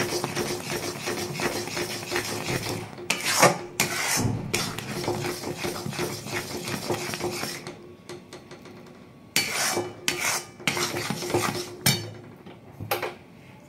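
Steel ladle scraping around a metal pan while stirring thick, bubbling jaggery syrup cooked to the set stage. The scraping is continuous for the first half, eases off around eight seconds in, then comes back as a few separate strokes near the end.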